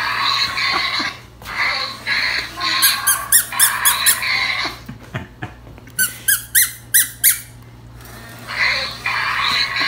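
Squeakee Balloon Dino robotic toy playing its built-in electronic sound effects. It makes a raspy creature sound, then two quick runs of short, high squeaks, five or six each, then the raspy sound again near the end.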